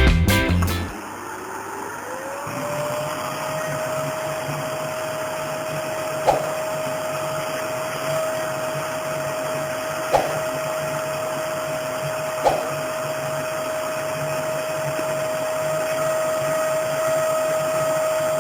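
Children's battery-powered toy vacuum cleaner running: its small motor spins up over the first couple of seconds to a steady whine, with three short clicks along the way.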